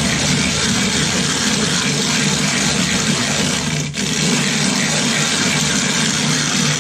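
Silicon carbide sharpening stone being rubbed over a glass lapping plate in a wet slurry of loose coarse grit: a continuous gritty grinding, the stone's face being flattened. It breaks off briefly about four seconds in.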